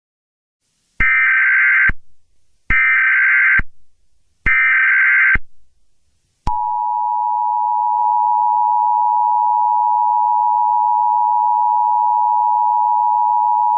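Emergency Alert System tones: three short bursts of the warbling digital SAME header, each about a second long, followed about six and a half seconds in by the steady, harsh two-tone EAS attention signal.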